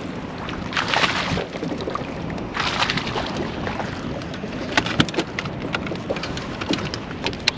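Hooked smallmouth bass being fought to the side of a kayak: wind on the microphone, with two short bursts of splashing about one and three seconds in, then a scatter of small clicks and ticks toward the end.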